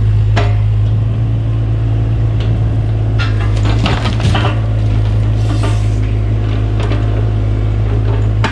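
Cat 303 mini excavator's diesel engine running steadily as it tears down a wooden shed, with wood cracking and splintering in a series of sharp knocks, thickest about three to four seconds in.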